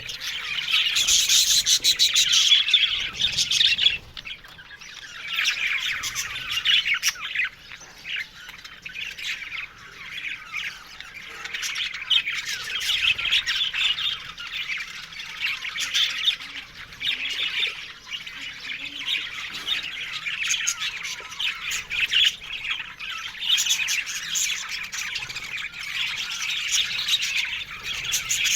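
A colony of budgerigars chattering together: a dense, continuous warble of many overlapping chirps and calls, loudest in the first few seconds.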